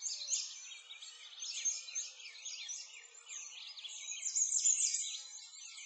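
A chorus of many small birds chirping at once, a dense tangle of short high calls and quick falling sweeps, loudest a little past the middle.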